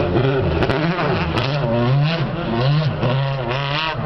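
The 4.3-litre naturally aspirated V8 of a 2006 Super GT-spec Lexus SC430 race car, revving up and down repeatedly as it is driven through tight turns, its pitch rising and falling several times.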